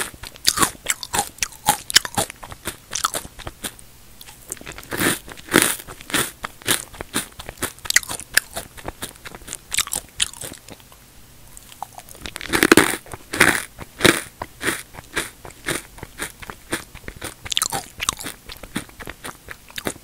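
Close-miked crunching and chewing of square potato and sweet potato chips: a quick, uneven run of crisp crackles, with louder crunches about five seconds in and again around twelve to thirteen seconds.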